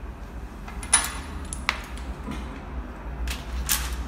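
Four sharp metallic clicks and clinks from small hand tools and brass fittings being handled on a stone countertop. The first, about a second in, is the loudest and rings briefly and high. A steady low hum runs underneath.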